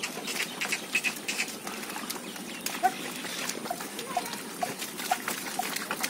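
Yoked bullocks' hooves and a plough squelching and splashing through a flooded, muddy paddy field as the team walks. From about halfway in, short high chirps repeat about twice a second over the splashing.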